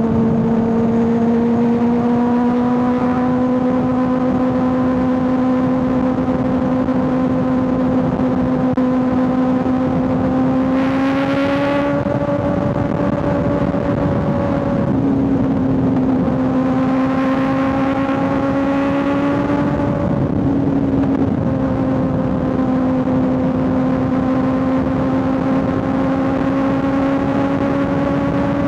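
Kawasaki ZX6R 636 inline-four engine and exhaust cruising steadily at highway speed, the pitch slowly climbing. The throttle is rolled on briefly about eleven seconds in and again around seventeen to nineteen seconds, the note brightening each time, with the pitch dipping briefly after each. A steady rush of wind and road noise runs underneath.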